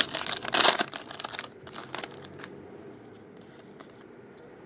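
Foil trading-card pack wrapper crinkling and tearing as it is pulled open, dying away after about a second and a half into a few faint rustles.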